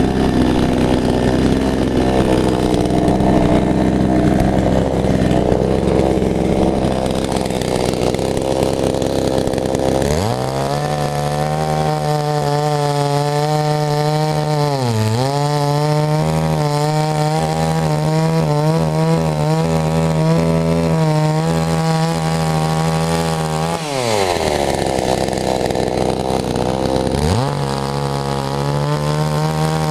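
Two-stroke chainsaw engine running at full throttle, then dropping back to a steady lower-revving run about ten seconds in, with a brief dip around fifteen seconds. It revs high again for about three seconds after the twenty-four second mark, then settles back.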